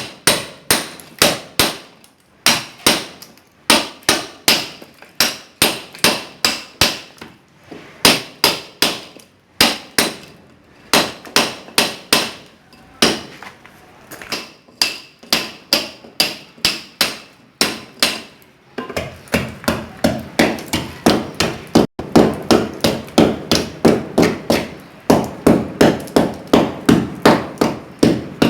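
Hand hammer (marreta) striking a steel chisel into a masonry wall: rapid sharp blows, about three to four a second, in runs with short pauses. From about two-thirds of the way through, the blows sound deeper and come more steadily.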